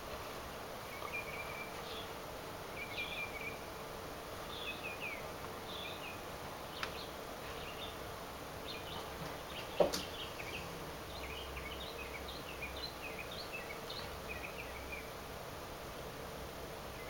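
Faint background ambience with scattered short, high chirps of small birds over a steady low hum, and a single knock about ten seconds in.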